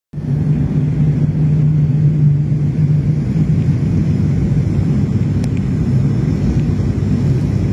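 Airliner cabin noise on the approach to landing: a steady engine and airflow rumble with a low hum, heard from inside the cabin.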